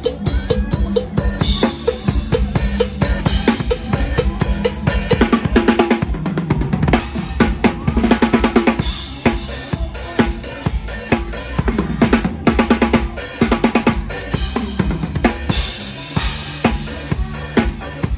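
Drum kit played live in a mor lam band: fast, dense bass drum and snare strokes with rimshots, over the band's steady low bass notes.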